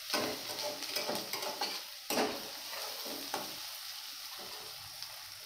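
Sliced onions frying in oil in an aluminium kadai, sizzling steadily while a metal spatula stirs and scrapes them against the pan; sharp scraping strokes come at the start, about two seconds in and about three seconds in, then ease off, leaving the sizzle.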